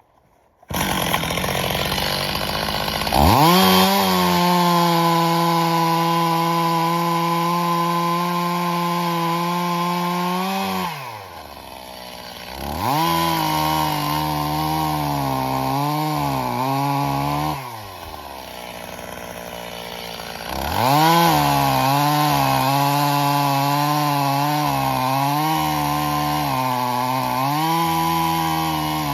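Stihl MS 270 two-stroke chainsaw cutting birch logs: the engine runs at full throttle in three long stretches, its pitch sagging and wavering as the chain bites into the wood, dropping back to a low idle between cuts. The sound comes in abruptly about a second in.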